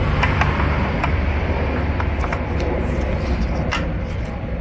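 A steady low rumble, with a few faint, light metallic clicks as a roller chain is handled and fitted over its sprockets: the oil pump drive chain of a CVT transmission.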